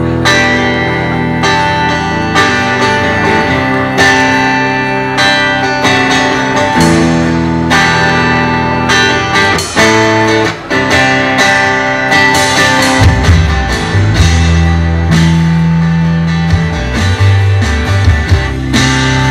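Live band playing an instrumental passage: electric guitar and saxophone over bass and drums, with steady drum hits. The low bass notes grow heavier about two-thirds of the way through.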